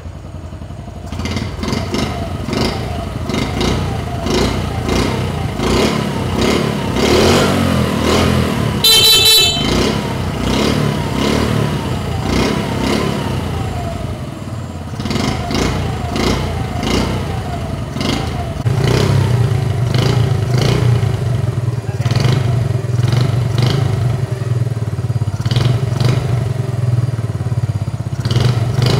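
Freshly rebuilt Honda Super Cub C50 single-cylinder four-stroke engine kick-started and running, revs rising and falling, then settling into a steady idle about two-thirds of the way through. A brief horn beep sounds about nine seconds in.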